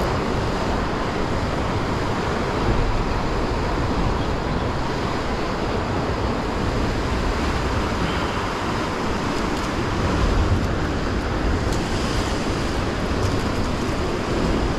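Heavy ocean surf churning against rocks, a steady rush of breaking waves, with wind rumbling on the microphone.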